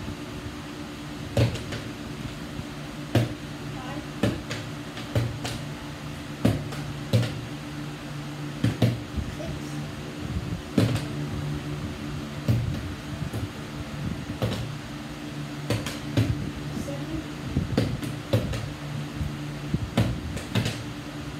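Partly filled plastic water bottles being flipped and landing on a table tennis table: a long run of knocks and thuds, about one a second, over a steady mechanical hum.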